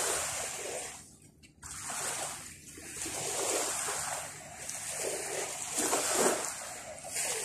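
Sea surf washing onto a beach, a hiss that swells and fades every second or two, with a brief lull about a second in.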